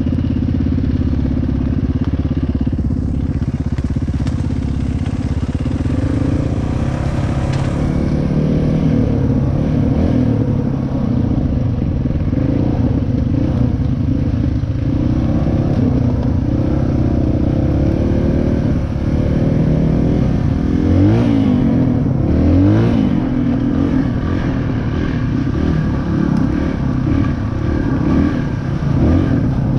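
Dirt bike engine running under way on a trail, revving up and down as the throttle changes, with a couple of quick rises in pitch about two-thirds of the way in.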